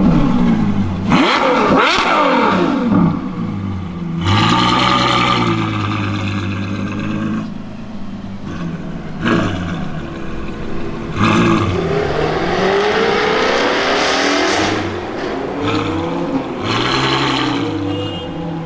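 Ferrari F12 N-Largo's 6.3-litre V12 being revved and driven slowly: several quick revs up and down at the start, a steady drone, then a longer climb in pitch around the middle as it pulls away, and a few short blips near the end.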